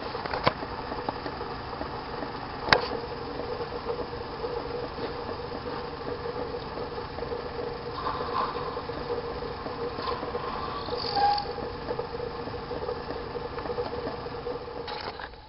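Small lathe running with a steady hum while a hand-held tool scrapes a bone chess pawn spinning in the chuck, with a sharp click about three seconds in. The running sound cuts off at the very end.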